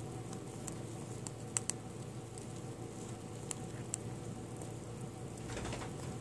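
Pet rat nibbling food held in its paws: a few faint sharp ticks, the loudest two close together about one and a half seconds in, and a soft rustle near the end, over a steady low hum.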